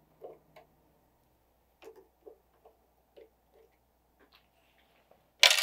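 Faint, irregular small metal clicks and ticks from snap ring pliers prying snap rings off the planer's feed roller shafts, with the drive chain and sprockets being handled.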